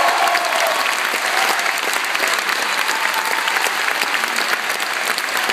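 Audience applauding at the end of a song, many hands clapping steadily.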